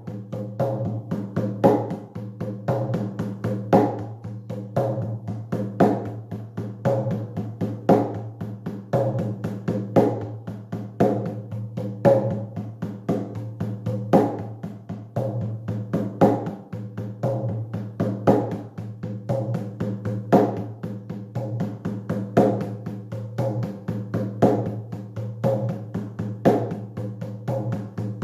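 Shamanic journey drumming: a hand drum beaten in a fast, steady, repetitive rhythm, with a heavier stroke about every two seconds.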